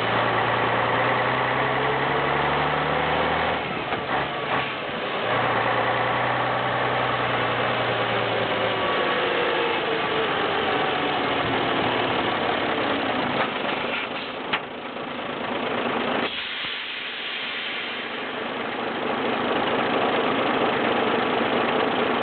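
Pegaso 310 truck's diesel engine running with the truck on the move, its note breaking off and picking up again twice and building again near the end. A single sharp click about two-thirds of the way through.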